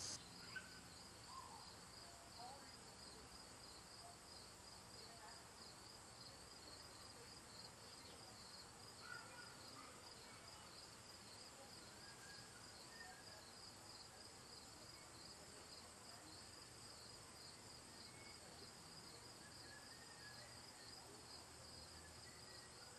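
Near silence with faint background insect chirping: a cricket-like high trill pulsing evenly throughout.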